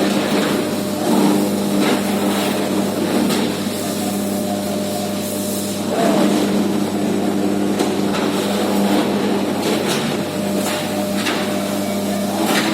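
Electric arc furnace running during a melt: a steady loud electrical hum with irregular crackling and banging from the arc over it.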